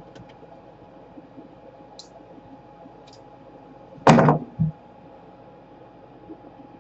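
A loud knock about four seconds in, followed half a second later by a second, shorter one, with a few faint light ticks before them.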